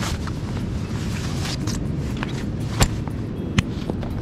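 A rolled polycotton tent being unbuckled from its bag and unrolled: fabric rustling, with two sharp clicks near the end, over a steady low rumble.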